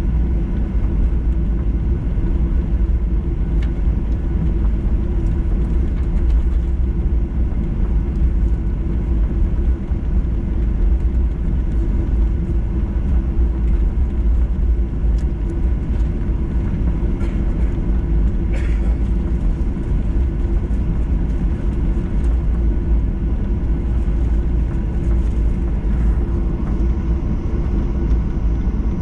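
Steady low rumble of cabin noise inside a jet airliner taxiing on the ground, the engines at idle and the wheels rolling over the concrete, with a steady hum underneath. A faint tick or two about halfway through.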